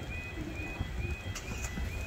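Level crossing warning alarm sounding: a repeating high, warbling electronic tone, about two and a half times a second, over a steady low rumble. Two light clicks come about a second and a half in.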